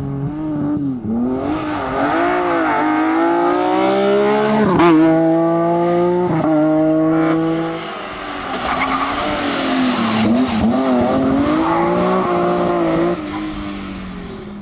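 Rally car engine driven hard: it wavers through a corner, then climbs through the gears with a sharp shift about five seconds in and another about six and a half seconds in. It backs off near eight seconds and comes back on throttle for a second hard spell before fading near the end.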